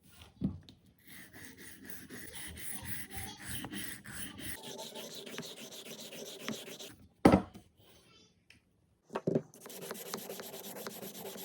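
A rolling knife sharpener's abrasive disc grating along a paring knife's edge in two long spells of steady rubbing. A sharp knock falls between the spells.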